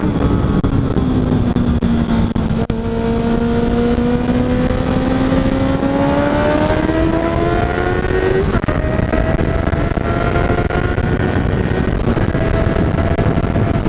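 Honda CB650F inline-four motorcycle engine accelerating on the road. Its pitch climbs steadily, drops at an upshift a little past halfway, then climbs again. Steady wind rush on the microphone runs underneath.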